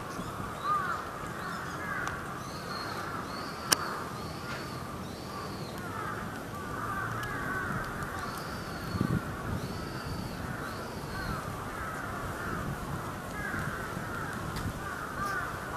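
Crows cawing amid a dense, continuous chorus of short bird calls, with a few higher arched calls among them. A single sharp click sounds about four seconds in.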